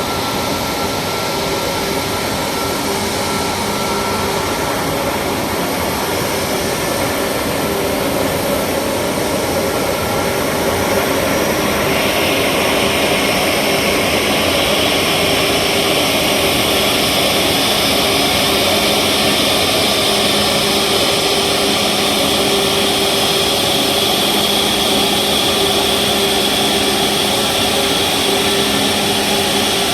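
Boeing 737 MAX 8's CFM LEAP-1B jet engines running steadily, heard from inside the cabin. About twelve seconds in, a louder, higher hiss builds up and the noise stays at that level.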